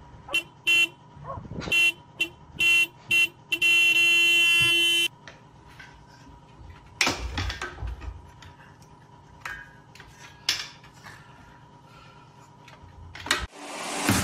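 Car horn honking: about six short toots, then one held blast of about a second and a half.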